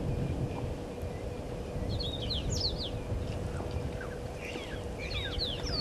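Small birds chirping in clusters of quick, falling notes, once about two seconds in and again near the end, over a steady low rumble and a faint steady hum.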